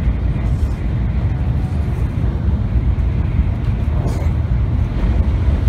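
Steady low rumble of a Shinkansen N700 bullet train running at speed, heard from inside the passenger cabin.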